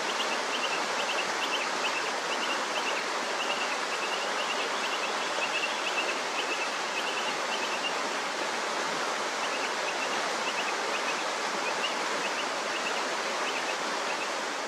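Creek water rushing steadily over rocks and small falls. Short high chirps repeat over it through much of the time, pausing for a couple of seconds around the middle.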